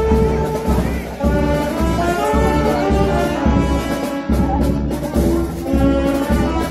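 Brass band music with a steady bass beat of about two beats a second under held horn notes.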